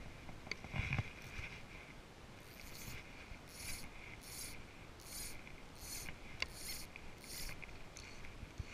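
Fly line being pulled by hand in about eight short, evenly spaced strokes, each a brief hissing rasp of line running through the rod's guides and fingers.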